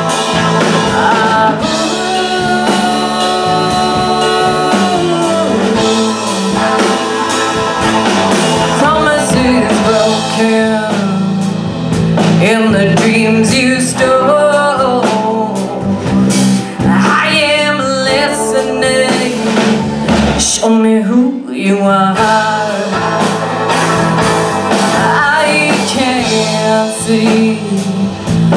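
Live indie pop band playing: a woman singing lead over electric guitar, electric bass and a drum kit, with the bass and drums briefly dropping out about three quarters of the way through.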